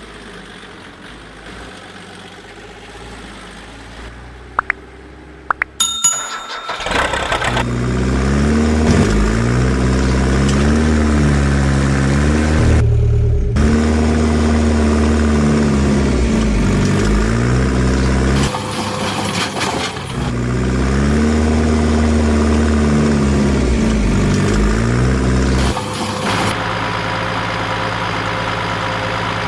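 A few clicks, then an engine starting about six seconds in. It runs on, revving up and down over and over as if working under load, drops out briefly twice, and settles to a steadier idle near the end.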